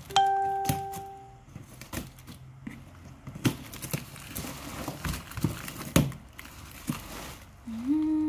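A cardboard parcel being cut and pulled open: packing tape tearing and cardboard flaps crackling, with sharp knocks as the box is handled. A steady pitched tone sounds for about a second at the start, and a short rising hum comes near the end.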